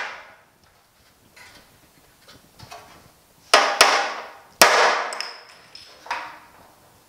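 Hammer blows on the sheet-steel end lip of a 1950 Chevy truck running board, bending it back straight: three sharp strikes in quick succession about halfway through and a lighter one near the end, the metal giving a brief thin ring after the third.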